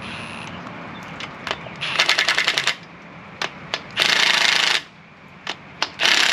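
Impact wrench running down the bolts on a 9-inch rear end, in three short bursts of rapid hammering about two, four and six seconds in, with light metal clicks between.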